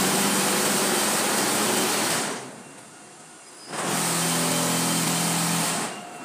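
Concrete block production line machinery running: a steady mechanical hum with hiss. It cuts out for about a second and a half midway and drops away again near the end.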